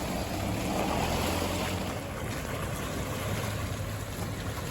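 Wind buffeting the microphone, an even rushing noise over a steady low rumble.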